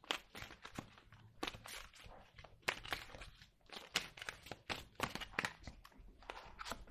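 Tarot cards being handled as a card is drawn from the deck: a run of soft, irregular clicks and rustles of card stock.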